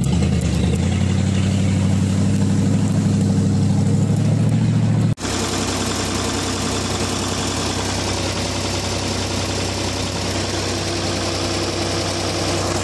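Vehicle engine running steadily, its pitch rising slightly about a second in. About five seconds in the sound changes abruptly to a somewhat quieter, steady engine drone.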